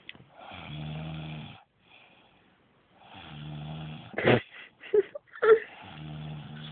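A woman snoring in her sleep: three snores about a second long each, coming roughly every two and a half to three seconds. Between the second and third snore there are a few short, louder bursts.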